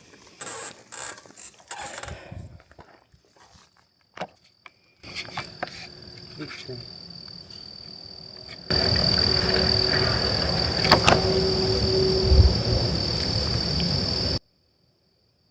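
Insects, likely crickets, trill on a steady high note. From about nine seconds in a loud rustling noise covers them, with one sharp snap a couple of seconds later, and everything cuts off suddenly near the end.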